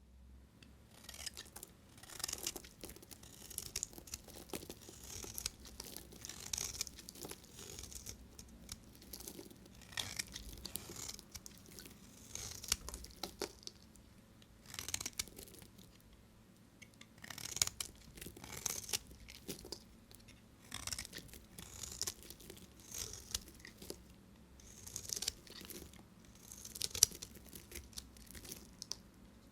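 A knife cutting through bars of soap: repeated short scraping cuts, coming in clusters with brief pauses between them.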